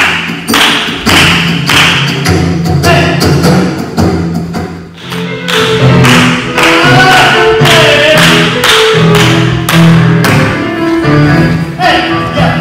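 Background music with a strong steady beat, about two beats a second, over a bass line and melody.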